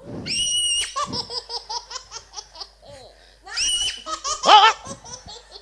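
A man's high-pitched, childlike laughing: a squeal, then a run of quick ha-ha pulses about five a second, a second squeal, and a loud shriek near the end.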